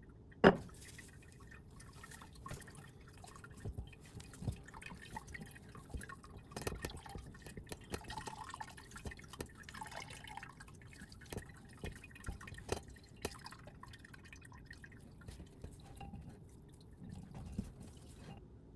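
Liquid dripping irregularly from a filter bag into the pool of extract in a glass dispenser jar, drops falling at uneven intervals. One sharp knock about half a second in is the loudest sound.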